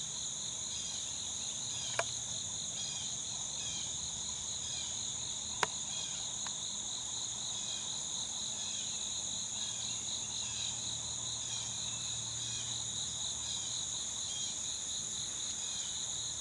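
Steady chorus of insects: one high, constant trill and a lower, rhythmically pulsing one. Two sharp clicks sound, about two seconds and five and a half seconds in.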